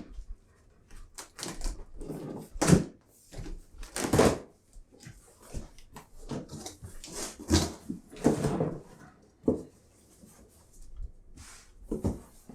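Cardboard box and packaging being opened and handled: irregular knocks and rustles. A dog makes noises among them.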